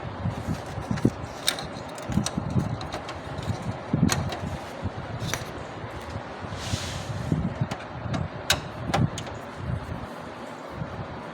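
HP LaserJet 3005/3035 printer running, with irregular clunks and sharp clicks over a steady mechanical hum and a brief hiss about two-thirds of the way in. These are the abnormal mechanical noises of the printer's noise fault.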